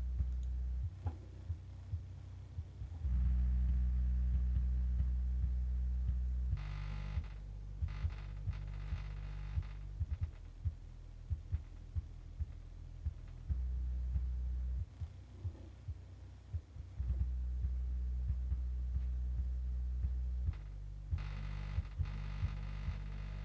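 Bass test played through a pair of 1990s factory car speakers from a 1993 Citroën Xantia: deep, steady bass notes that change every few seconds, cut through by frequent sharp thumps.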